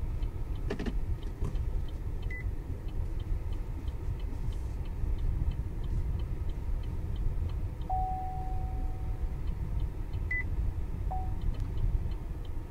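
Cabin sound of a Chevrolet Onix Plus Turbo moving slowly: a steady low rumble from the engine and tyres, with the turn signal ticking about three times a second. A few short electronic beeps and one longer tone sound from the car as the parking assist searches for a space.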